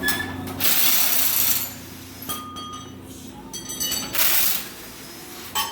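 Metal parts and tools clinking and ringing in several light strikes, with two short hissing bursts, the first about a second in and a shorter one about four seconds in.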